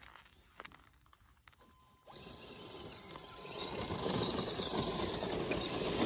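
Silver 6x6 RC crawler truck, a Mercedes AMG 6x6 replica, driving up a slope of dirt and dry leaves: its electric drivetrain and tyres are heard. Only a few faint clicks at first, then about two seconds in the running sound grows louder as the truck comes close, and holds steady.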